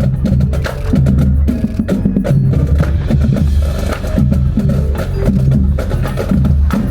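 High-school wind band playing loudly, with low brass notes held in blocks of about a second over a busy rhythm of sharp drum and percussion hits.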